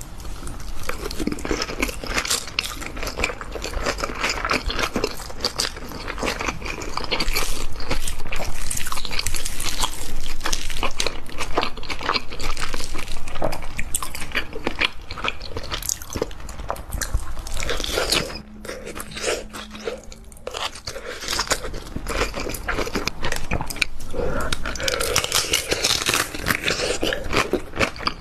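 Close-miked eating of crab and rice: wet chewing, crunching and biting with many small clicks and smacks, loudest through the middle, with a short quieter pause about two-thirds of the way through.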